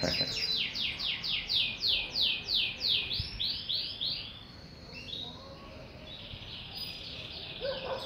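Songbird singing a fast run of repeated downward-sweeping whistled notes, about four a second. About four seconds in, the song turns into a fainter, steadier twittering.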